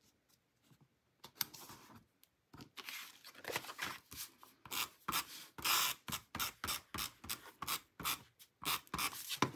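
Handheld adhesive tape runner drawn across the back of a cardstock mat in many short strokes, each a quick scraping rasp, about two or three a second. It starts about a second in, after a moment of paper handling.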